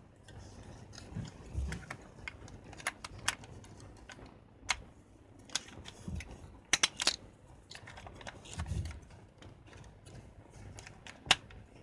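Canon Autoboy A compact 35 mm film camera handled with its back open: scattered sharp plastic clicks and taps, with a quick cluster of clicks a little past the middle and a few soft low bumps from the body being handled.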